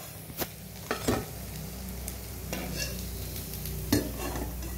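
Hot oil sizzling in a kadai as pieces of lentil-coated fried eggplant are lifted out. A metal spatula clicks and knocks against metal a few times, loudest about four seconds in.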